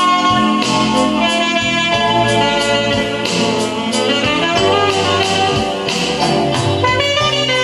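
Music played from a vinyl record on a vintage Dual 701 turntable.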